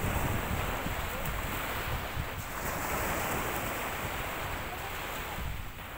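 Small sea waves washing in the shallows, with wind buffeting the microphone in a low rumble; the wash swells about halfway through.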